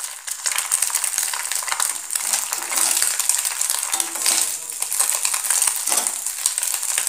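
An egg sizzling and crackling as it fries in hot oil in a kadhai, with a slotted metal spatula scraping and pushing it across the pan.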